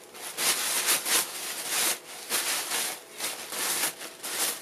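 Crumpled, already-used wiping paper rustling as it is rubbed over a lacquered wooden bowl, in repeated strokes about once a second. This is the rough first wipe that takes the surplus urushi lacquer off the bowl after its first, wood-sealing coat.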